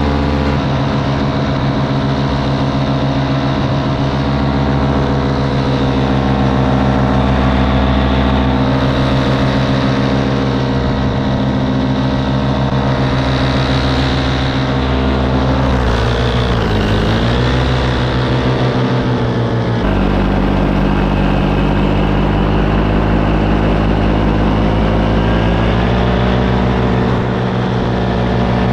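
Paramotor engine running steadily in flight, close and loud; its pitch dips and climbs back up a little past the middle.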